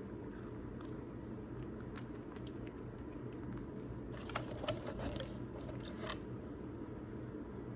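Crunching and crackling clicks for about a second, starting about four seconds in, and a short burst again near six seconds, over a steady low hum.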